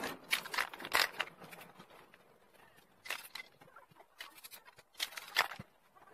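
A run of short, separate hissing and crinkling bursts from an aerosol spray-paint can and crumpled newspaper, in sped-up audio.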